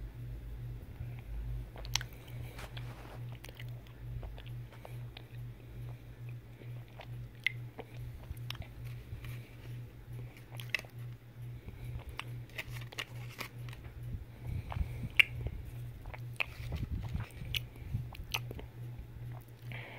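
Close-up chewing and biting, with scattered sharp crackles that fit the handled foil wrapper of the chocolate egg. A steady low hum runs underneath.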